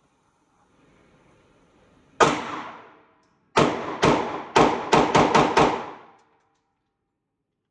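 Eight gunshots: a single shot, then about a second and a half later seven quick shots fired in rapid succession. Each shot has a short ringing tail.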